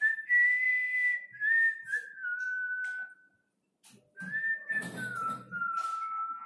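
A man whistling a slow tune to himself in two phrases of held notes that step downward in pitch, with a pause of about a second between them.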